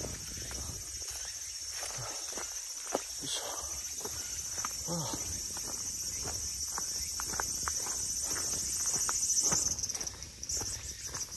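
A hiker's footsteps, an even series of short steps, under a steady high-pitched insect drone that fades out about ten seconds in.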